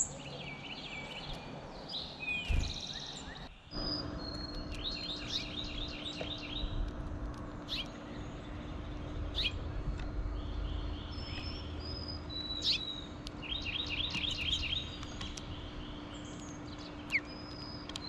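Songbirds singing: several bursts of fast trills of evenly repeated notes, mixed with short high whistles and sharp chips. A faint steady low hum sets in about four seconds in.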